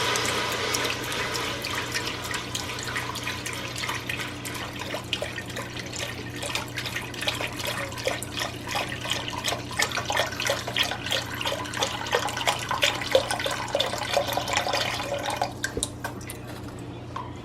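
Chicken broth pouring from a carton into a Dutch oven: a steady stream at first, breaking into irregular splashes and drips as the carton empties, and thinning out about two seconds before the end.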